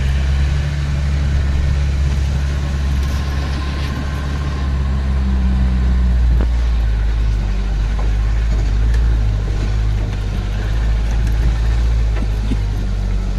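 A vehicle's engine running steadily as it drives, heard from inside the cabin as a low drone, with a few light knocks.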